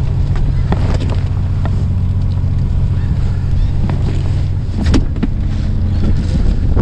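A fishing boat's engine running with a steady low hum, with scattered clicks and knocks from gear being handled on deck, the sharpest about five seconds in.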